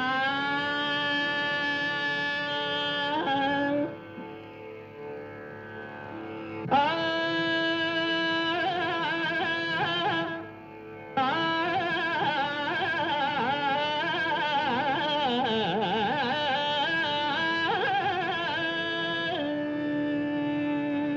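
Carnatic music: a slow, free-time melody in long sustained phrases with gliding ornaments, over a steady drone, with short pauses between the phrases.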